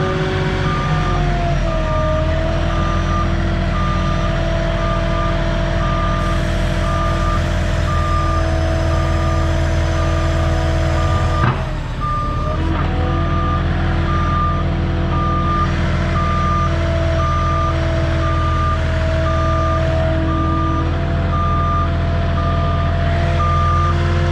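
Moffett truck-mounted forklift running and backing up, its reversing alarm beeping steadily over the engine while the engine note rises and falls a little. A single clunk comes about halfway through.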